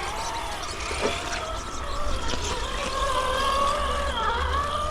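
Electric motor and gearbox of an RC rock crawler whining steadily as it drives, the whine dipping in pitch and coming back up near the end, with a knock about a second in.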